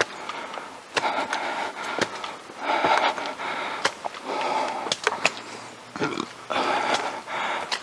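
A person breathing hard close to the microphone, with a noisy breath every second or two, and sharp clicks scattered in between.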